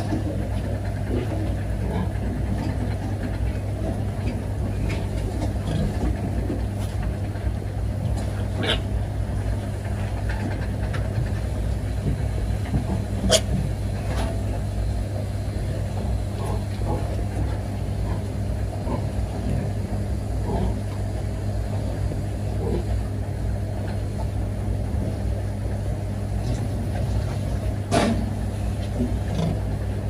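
Piglets grunting and squeaking now and then over a steady low machine hum, with a few sharp knocks, the loudest about thirteen seconds in and another near the end.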